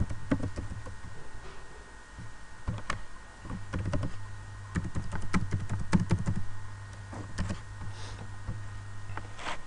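Computer keyboard being typed on in irregular runs of keystroke clicks, over a steady low hum.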